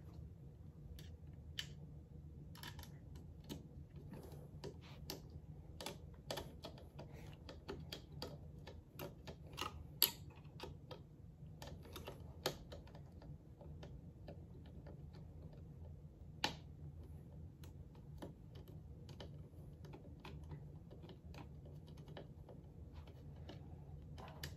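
Irregular small clicks and taps of a hand screwdriver and screw against the plastic head mount of an animatronic Halloween prop, with a few sharper knocks, over a steady low hum. The screw will not go in because the head is not fully seated.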